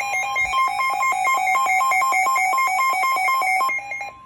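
Electronic weather-alert alarm tones warbling rapidly between two pitches, several steps a second, that stop about four seconds in. They give way to a steady single tone near 1 kHz, the weather radio's warning alarm tone, which begins right at the end.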